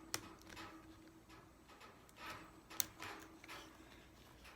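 Faint handling of small laptop parts: two sharp plastic clicks, one just after the start and a louder one near three seconds in, with soft scraping between, as ribbon-cable connectors are pressed into place on a Chromebook motherboard.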